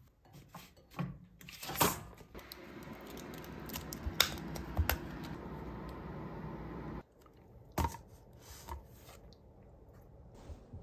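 Scattered clicks and rustles of food containers and packaging being handled, over a steady hum that stops abruptly about seven seconds in.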